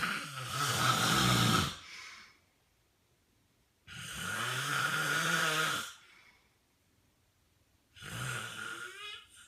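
A sleeping man snoring: three long snores, roughly four seconds apart, each about two seconds long, with quiet gaps between them.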